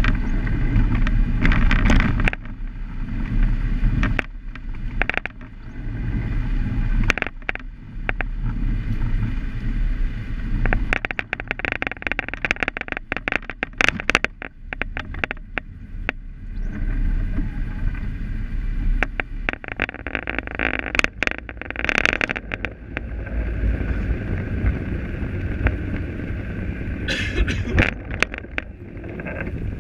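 Car interior while driving on wet roads: a steady low engine and road rumble with frequent short rattles and clicks, the rattling that the uploader apologises for.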